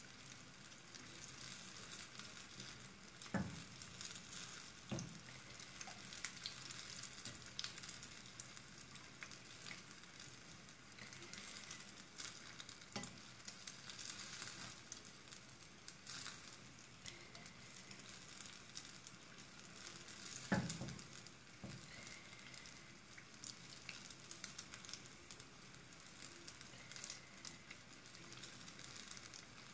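Konda kavum batter deep-frying in hot oil in a small pan: a steady sizzle and crackle. A few sharp knocks of a utensil against the pan, the loudest about two-thirds of the way through.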